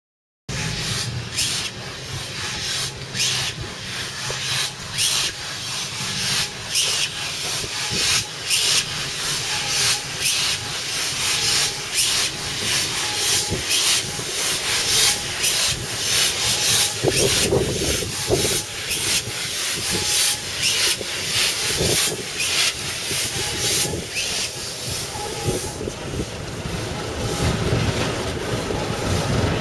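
Southern Railway rebuilt Bulleid West Country class steam locomotive No. 34028 moving slowly, with irregular short exhaust beats and hissing steam. Near the end a Class 08 diesel shunter's engine grows louder as it passes close by.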